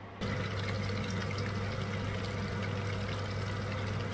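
Spring rolls sizzling as they deep-fry in hot oil in a pan: a dense, steady crackle of tiny pops. It cuts in suddenly just after the start, over a steady low hum.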